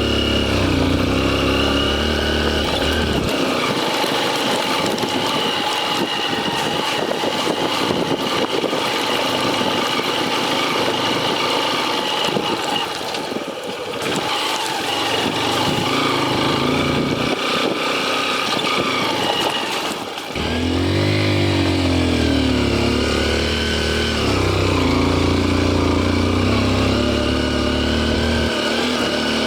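Motorcycle engine running while being ridden, its pitch rising and falling with the revs, with wind and road noise. The deep engine sound drops away for a long stretch and comes back strongly about twenty seconds in.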